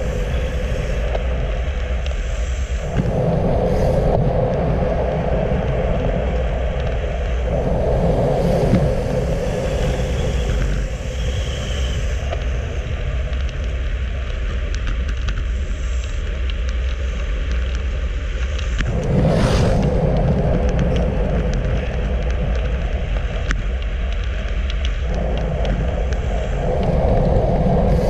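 Wind rushing over the microphone of a handlebar-mounted camera on a road bike at speed, over a constant rumble of tyres on asphalt; the wind noise swells and eases in waves, with one brief whoosh about two-thirds of the way through.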